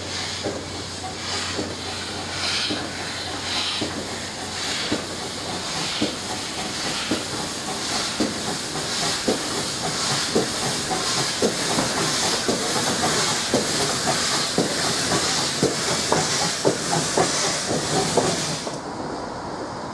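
GWR 6400 class pannier tank locomotive 6430 pulling away under steam: a loud steady hiss of escaping steam over short exhaust beats that come quicker as it gathers speed. The hiss cuts off suddenly near the end.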